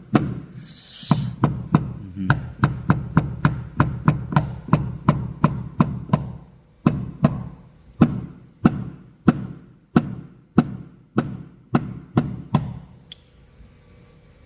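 Paintless dent repair tap-down: a hammer tapping a knockdown tool against the aluminium hood of a BMW 630i to flatten a raised dent, a steady series of light sharp taps, each with a short low ring. The taps come about two to three a second, slow somewhat in the second half and stop shortly before the end.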